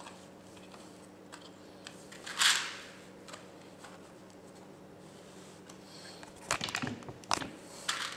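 Hands handling a laptop motherboard in its plastic base: a short scraping rustle about two seconds in, then a cluster of light clicks and knocks near the end as the board is pressed and shifted into place.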